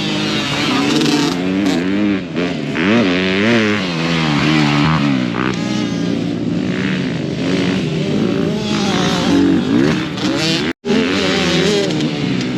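Several off-road dirt bike and four-wheeler engines racing together, their pitch rising and falling as riders throttle up and back off around the track. The sound cuts out completely for an instant near the end.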